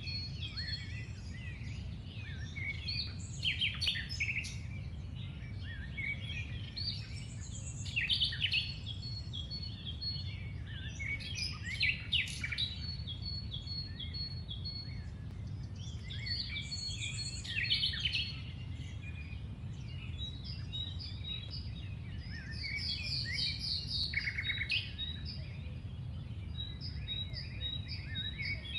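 Birds chirping and singing in repeated bouts of quick chirps and trills, over a steady low rumble of outdoor background noise.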